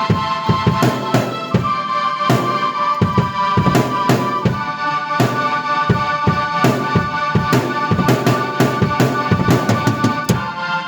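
Drum kit and keyboard played together by one player: a busy drum beat under held keyboard chords, the chord changing about two seconds in.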